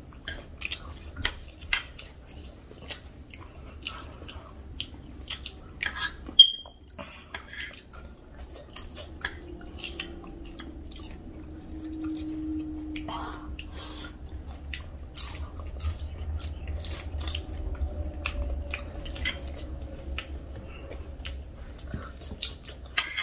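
Close-miked chewing and crunching of spicy snack food, with many short wet mouth clicks. A single sharp clink with a brief ring about six seconds in.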